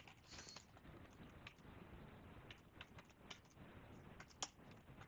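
Faint, irregular clicks of keys on a computer keyboard being typed on, with one slightly sharper click a little after four seconds in.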